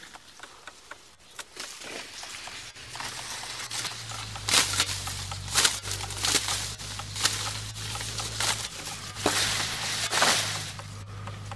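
Tall dry reeds rustling and crackling as they are pulled and gathered by hand, with several sharp snaps of stalks, the loudest about halfway through and again near the end. A low steady hum sits underneath from about three seconds in.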